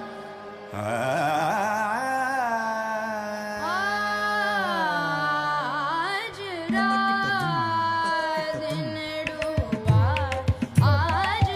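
Carnatic vocal music: a singer holds long notes and slides between them with ornamented glides over a steady drone. Sharp drum strokes join near the end.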